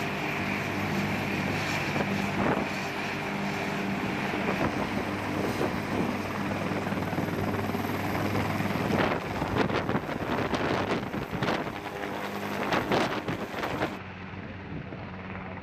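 Bell UH-1Y Venom helicopter running with rotors turning on the ground, a steady turbine-and-rotor drone, then lifting off; in the second half its rotor wash buffets the microphone in gusts.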